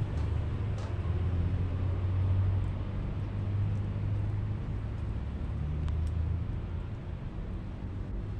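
Steady low engine rumble, like a motor vehicle running, with a few faint ticks.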